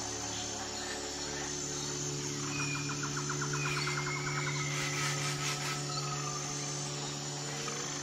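Wild ambience: a rapid, insect-like pulsed trill a couple of seconds in and a few thin whistled bird notes, over a steady low drone of sustained tones.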